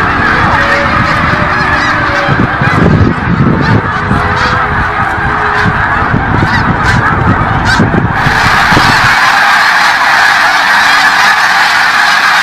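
A large flock of snow geese calling, a dense unbroken din of honking. A low rumble underneath stops abruptly about eight seconds in, where the flock sound shifts to a brighter, higher mix.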